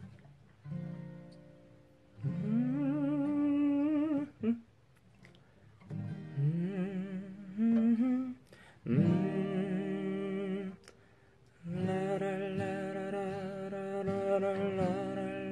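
A man hums a wordless tune over acoustic guitar chords, in a few phrases separated by short pauses. The voice slides up into its notes and wavers on the held ones.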